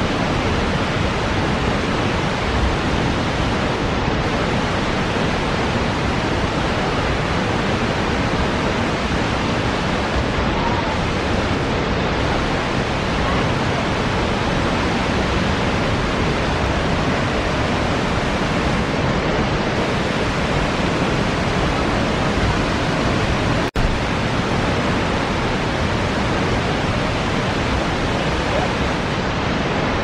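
Reichenbach Falls: a loud, steady roar of falling water, with a momentary dropout about 24 seconds in.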